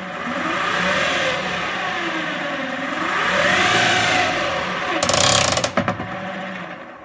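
Electric motor driving an outboard lower unit's gears and propeller, spinning in the air on its first test run. A whine rises and falls twice as the throttle is worked, and a harsh clattering burst comes about five seconds in.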